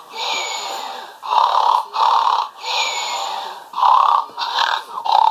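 Snoring toy bear playing its recorded snore in a steady loop: two short snorts, then a longer, higher, breathy exhale. The cycle repeats about every two and a half seconds.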